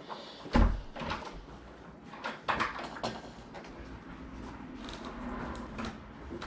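An interior door being opened and knocked about, with a heavy thump about half a second in and several lighter knocks and clicks after it.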